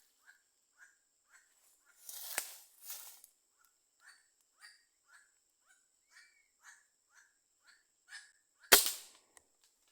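A bird calls in short, evenly repeated notes, about two a second, over a steady high insect whine. Near the end comes a single sharp shot, the loudest sound, from the hunter's gun.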